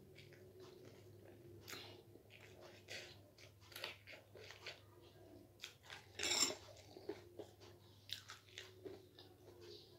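A person chewing and biting crunchy snack food close to the microphone: a string of short crunches, with the loudest, longest crunch about six seconds in.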